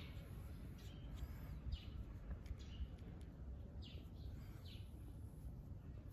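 Small birds chirping in short, high calls every second or so, faint, over a low steady rumble on the microphone.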